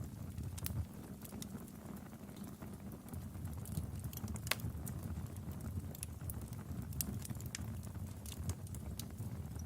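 Wood fire in a fireplace crackling, with scattered sharp pops (one stronger pop about halfway through) over a steady low rumble.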